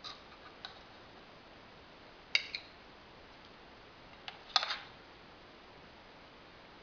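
Metal salad servers clinking against a ceramic bowl and china plate as salad is dished out: a few light, separate clinks, with a sharper pair about two and a half seconds in and the loudest cluster at about four and a half seconds.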